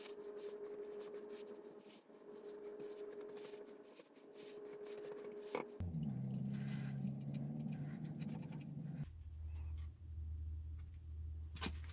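Fine sanding dust being swept across a workbench with a hand brush into a dustpan: soft, scratchy brush strokes over a steady low hum.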